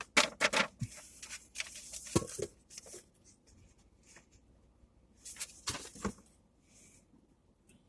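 Packaging rustling and crinkling as items are handled out of a box, in two bouts: through the first three seconds and again briefly about five seconds in.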